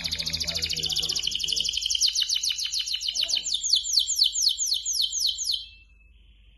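Canary singing: a fast trill of rapid repeated high notes that slows into a run of falling whistled sweeps, about four or five a second, and breaks off near the end.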